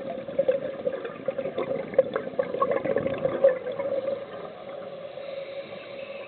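Underwater scuba exhalation: a rush of crackling, bubbling air lasting about four seconds, then easing off, over a steady low hum.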